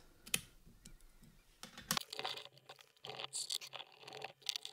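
Scraping, rustling and small clicks of a brass lock cylinder and tools being handled on a table. A faint steady hum sits under the later part.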